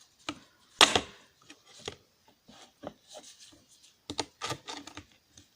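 Irregular clicks and knocks of small plastic and metal smartphone parts being handled and pried apart during a teardown. One louder knock comes about a second in, and a quick run of clicks comes near the end.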